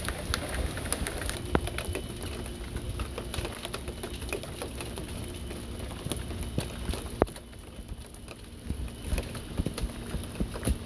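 Heavy rain falling steadily, with sharp close drips and splats of drops on a surface near the microphone. The rain eases a little about seven seconds in.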